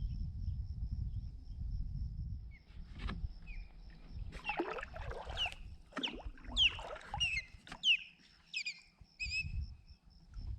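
Osprey calling: a run of about half a dozen sharp, high whistled calls, each sweeping downward in pitch, with a few shorter chirps, from about four seconds in until near the end. A low rumble fills the first few seconds.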